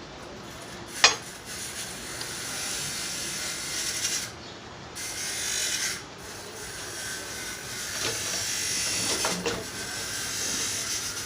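Hand-tool work on car steering tie rod end parts: a sharp metallic knock about a second in, then repeated stretches of scraping and rubbing, one to two seconds each.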